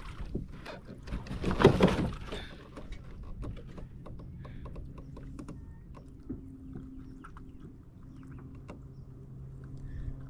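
A hooked bass splashing at the side of a kayak as it is landed, about two seconds in, followed by small clicks and rattles as it is handled and unhooked. A steady low hum sets in about halfway through.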